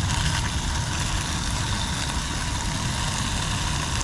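Gas canister camping stove burning steadily under a pan of chicken pieces frying and sizzling.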